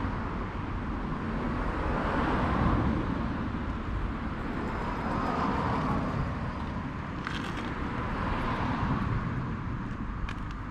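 Kawasaki Z500FX's air-cooled inline-four engine running steadily at idle, with no abnormal noise, a sign that it is in good running order.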